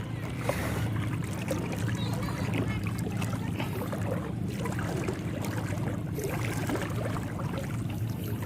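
Steady low drone of a boat engine running, with small splashes and sloshing of water.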